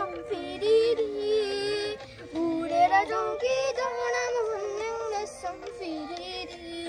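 A child singing a song in held, wavering notes, with a second voice singing along at times.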